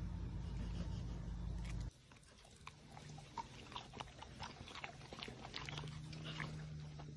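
A dog biting and chewing a treat: irregular sharp crunches and mouth clicks from about 2 seconds in. Before that, a steady low hum that cuts off abruptly.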